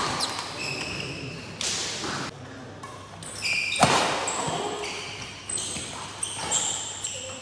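Badminton rally: several sharp smacks of racket strings hitting the shuttlecock, the loudest about four seconds in, with shoes squeaking briefly on the court mat between shots.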